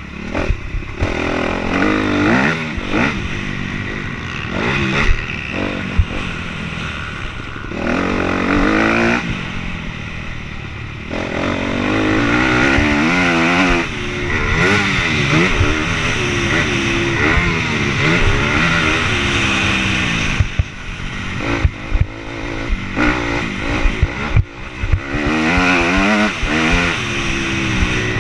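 Motocross dirt bike engine, heard from the rider's helmet-mounted camera, revving up and down again and again as the throttle is opened and closed through the track. There are a few short throttle-off dips and scattered knocks from the bike.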